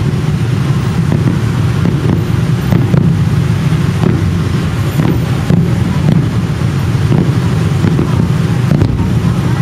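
Aerial fireworks going off repeatedly, sharp bangs and pops every half second or so over a steady low rumble.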